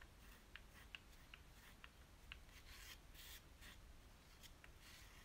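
Faint scraping of a metal palette knife working white and ochre paint together on paper, with light ticks scattered through and a few longer scratchy strokes in the second half.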